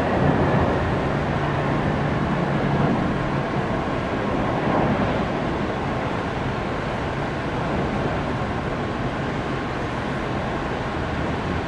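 Jet airliner engines running: a steady, loud rushing noise, with a low hum that fades out a few seconds in.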